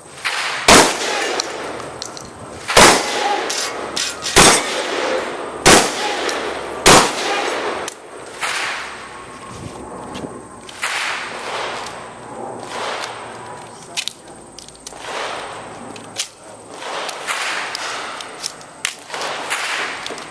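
Five 12-gauge shotgun shots, one to two seconds apart, in the first seven seconds. They are followed by a series of quieter clanks and knocks.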